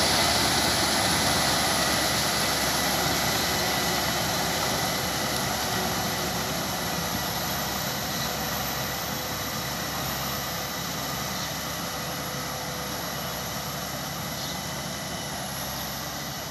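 Engine of a small crawler tractor running steadily while it pulls a rotary tiller through a flooded rice paddy, fading gradually as the tractor moves away.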